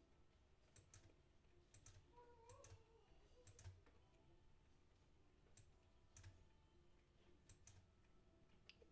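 Faint computer mouse clicks, single sharp clicks about once a second, over near silence.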